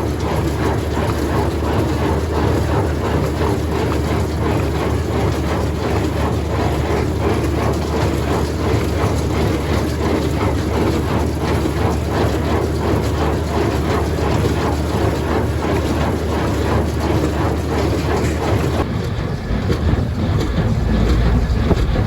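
Tractor running steadily with a constant fast rattle over a low engine hum. About three seconds before the end the rattle thins out and a deeper rumble takes over.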